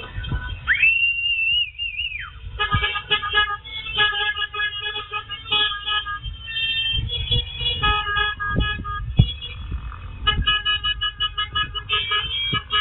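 Horns of an approaching golf cart parade tooting over and over in short blasts, heard through a security camera's narrow-band microphone. Near the start a single whistle-like tone rises, holds for about a second and a half, then falls.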